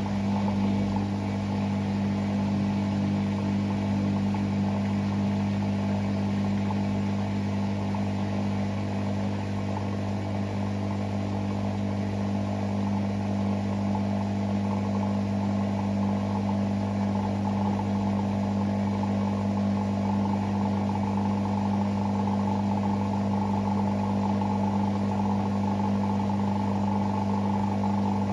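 Hoover Sportswear 1300 (AI130) washing machine running on its Speed Wash programme: a steady mechanical hum with a higher whine above it, unchanging throughout.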